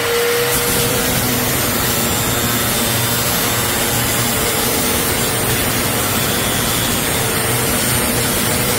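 A power tool running steadily: an even, continuous hiss with a faint low hum underneath.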